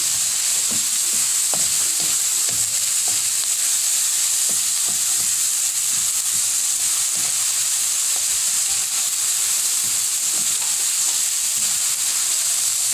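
Diced carrot and onion sizzling steadily in oil in a pan while being stirred, with light, irregular scrapes and taps of the stirring utensil against the pan.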